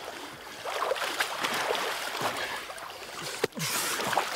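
Water sloshing and splashing as several people wade waist-deep through a river, with a sudden sharp sound about three and a half seconds in.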